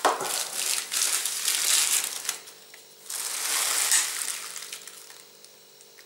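Clear plastic wrapping crinkling as a folding knife is pulled out of it, in two bouts of rustling that die away near the end.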